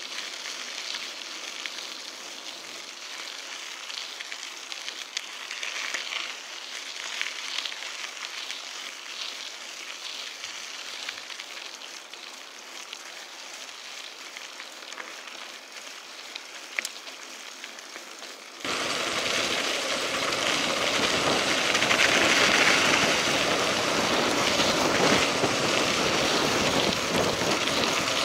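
Mountain bike tyres rolling over a gravel dirt road: a steady crunching hiss with small ticks of stones. About two-thirds of the way in, the noise jumps suddenly louder and deeper and stays there.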